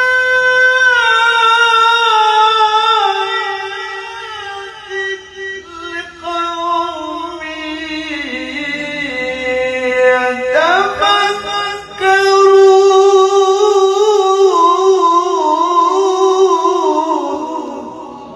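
A single voice chanting Quranic recitation (tilawah) in long held notes with melodic ornaments, sweeping quickly upward about ten seconds in and then holding a loud high phrase before fading.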